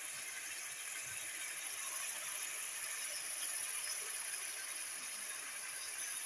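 Turnip and mutton curry sizzling in a pan over the heat: a steady high hiss.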